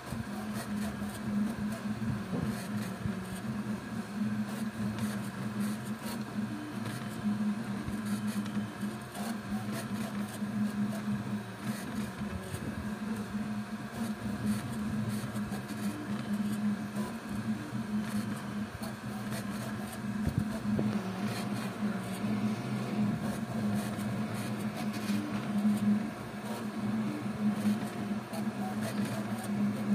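Voron 3D printer running a print: its stepper motors hum with a wavering pitch as the toolhead moves, over a steady whir.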